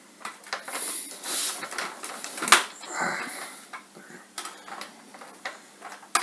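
Hard plastic parts of a large Transformers figure being handled. There are scattered clicks and knocks, with a sharp click about two and a half seconds in, and a brief rustle about a second in.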